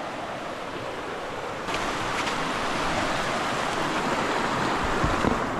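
River water rushing steadily, getting louder about a second and a half in.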